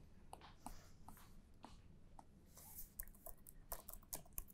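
Faint, irregular tapping of laptop keys, a few keystrokes at a time.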